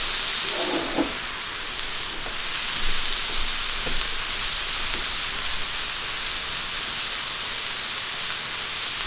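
Frozen bell peppers and onions sizzling steadily in canola oil on a hot Blackstone flat-top griddle, with a few faint clicks.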